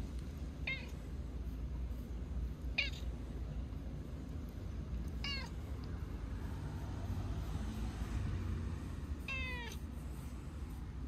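Calico cat meowing four times in short, high calls a couple of seconds apart, the last a little longer, over a steady low rumble.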